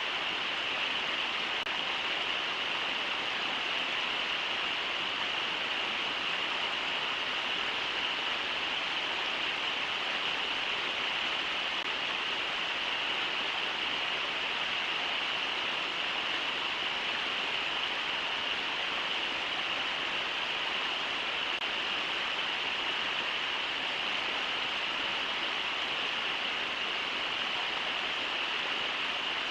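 Rushing river water over rapids and falls, a steady even noise with no breaks.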